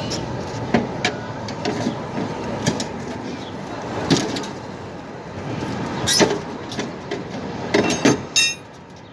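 Irregular metal knocks and clanks as a pry bar works the housing of a window air conditioner loose, with a brief high metal squeak near the end. Steady street traffic noise runs underneath.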